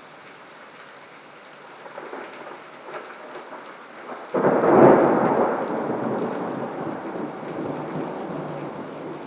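Steady rain on the storm, then a sudden loud clap of thunder about four seconds in, rumbling on and slowly fading.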